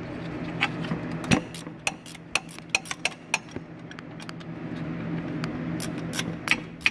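Wrench working a starter mounting bolt: irregular metallic clicks and clinks, a few a second, with a louder knock about a second in and a quieter stretch near the middle, over a steady low hum.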